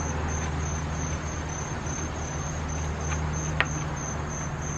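Insects chirping in a high, even rhythm about four times a second over a steady low hum, with a single sharp click about three and a half seconds in.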